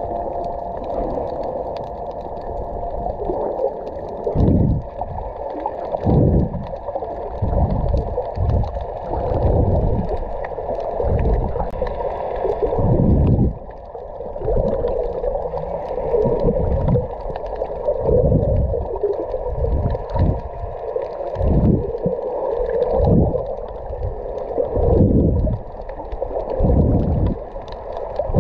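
Muffled underwater sound heard through a waterproof camera housing: water swirling around the camera, dull with no high end, with irregular low thuds every second or two.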